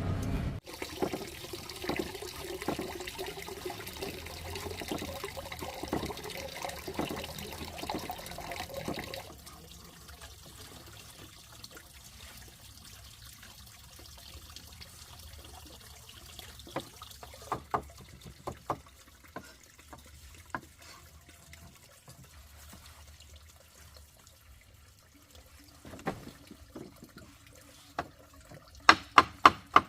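Water trickling and splashing for about the first nine seconds, then quieter, with scattered clicks and knocks that come in a quick series near the end.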